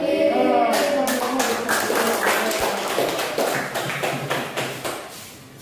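A classroom of children applauding: many quick overlapping claps that start about a second in and fade away near the end.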